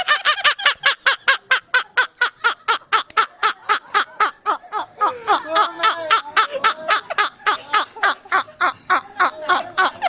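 Two men laughing hard: a long, unbroken run of rapid, even "ha-ha" bursts, about five a second, with a lower-pitched laugh joining about halfway through.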